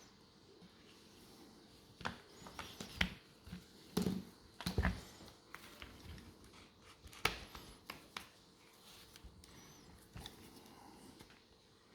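Scattered clicks, knocks and light rattles of small plastic and metal parts being handled and fitted by hand as a Milwaukee M18 impact driver is reassembled, busiest between about two and five seconds in.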